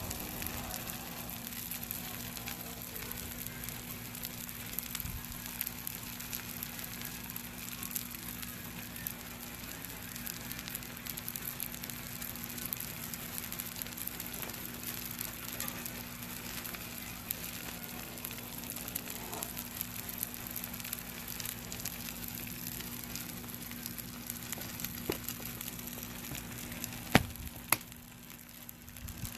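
T-bone steaks sizzling on a flat-top steel griddle over a fire pit's coals: a steady, crackling sizzle. Near the end there is a sharp click, and the sizzle drops briefly after it.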